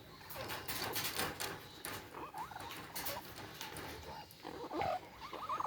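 Parrot making short squeaky chirps, a few in the middle and a quick cluster near the end, over a run of scratchy clicks and rustling in the first half.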